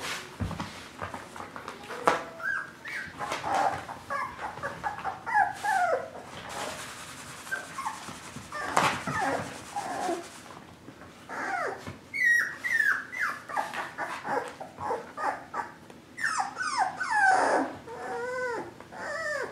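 Five-week-old mini Swiss Mountain Doodle puppies whining and yipping: many short, high calls that mostly fall in pitch, coming one after another and thickest near the end.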